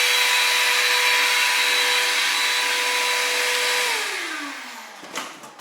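Milwaukee M18 Fuel cordless wet/dry vacuum running on its low setting with a steady whine. About four seconds in it is switched off and the motor winds down, falling in pitch and fading. Two short knocks come near the end.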